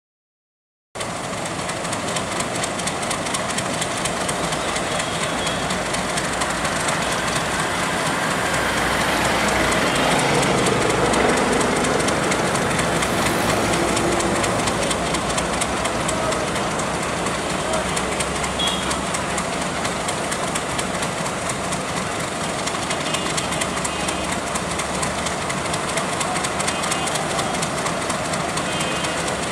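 Diesel locomotive engine running as a passenger train pulls slowly out, with a steady low rumble and people's voices mixed in. The sound starts about a second in and grows louder for a few seconds near the middle.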